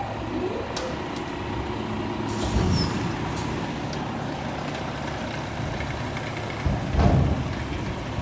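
Front-loader garbage truck's engine idling steadily, with a short burst of air hiss about two and a half seconds in and a louder low thump near the end.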